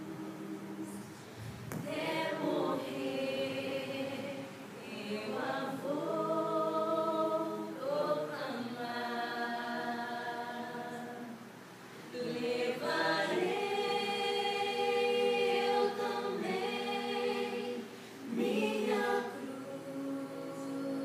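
A small group singing a slow worship hymn without accompaniment, in long held notes with short breaks between phrases.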